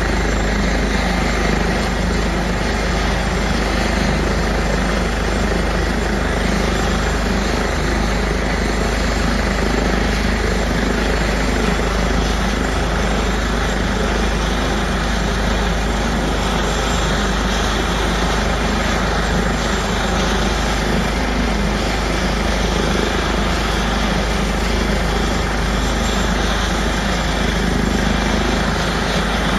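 Airbus H145 helicopter running on the ground with its rotors turning: a loud, steady whine and drone from its twin turboshaft engines and rotors, holding even throughout.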